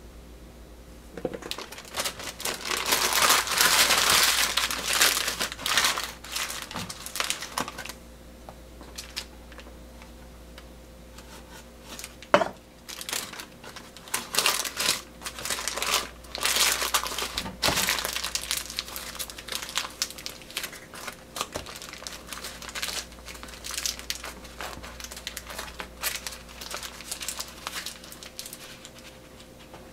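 Cooking parchment crinkling and rustling in irregular bursts as it is folded and twisted closed around a piece of mackerel, with one sharp click about twelve seconds in.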